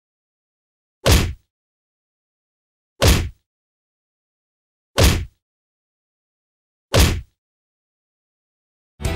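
Four short, sharp hit sound effects, evenly spaced about two seconds apart, each with a brief fading tail and dead silence between them, marking each item of an on-screen list as it pops up. Music comes back in right at the end.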